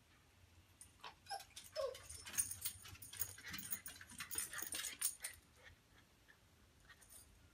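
Small dog coming down a spiral staircase with wooden treads: a quick run of clicks and taps from its claws on the steps for about four seconds, with two short whimpers near the start.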